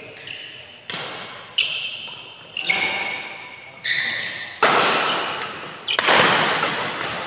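Badminton rackets striking a shuttlecock in a fast rally: a run of sharp hits, about seven, at uneven intervals, each ringing on in the hall's echo, the loudest ones in the second half.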